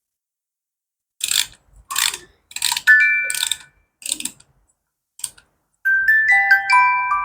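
A brass fidget spinner being handled: several short metallic scrapes and clicks over a couple of seconds, one with a brief ring, and a last click a little later. About six seconds in, plinking glockenspiel-like music starts.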